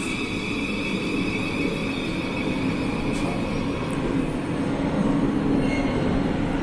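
Thameslink Class 700 electric multiple unit running slowly into an underground platform and coming to a stand: a continuous rumble with a steady high electrical whine that fades near the end.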